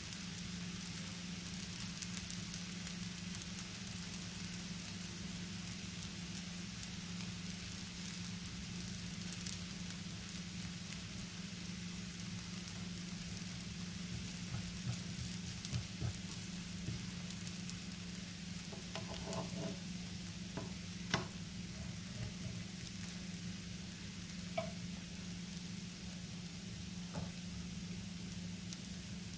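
A crepe sizzling and crackling softly in a hot oiled frying pan, over a steady low hum. About two-thirds of the way in come a few light clicks and taps as a wooden spatula works at the crepe's edge.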